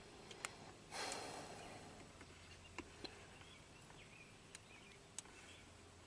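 Near silence, broken by a few faint single clicks and a short rustle about a second in.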